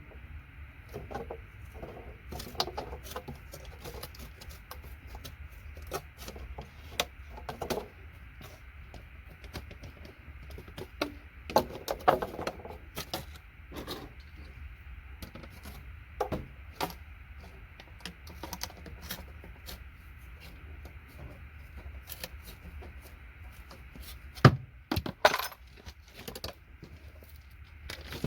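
Scattered clicks, snaps and metallic clinks of side cutters cutting and breaking up circuit boards and connectors, with small pieces dropping, over a steady low hum. The sharpest snaps come about twelve seconds in and again near the end.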